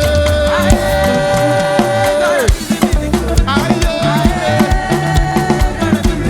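Live up-tempo gospel praise music with a steady drum beat, with a long held note about two and a half seconds long and then a second one.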